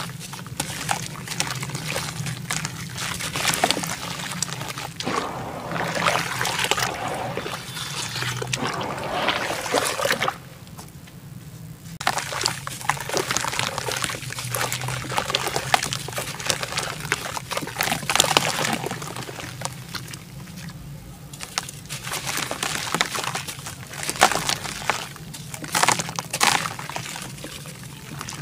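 Chunks of red dirt crumbled by hand over water: crumbs and wet clumps pour, splash and trickle into the water with sloshing and a crackly crunch. It goes quieter for about two seconds roughly ten seconds in.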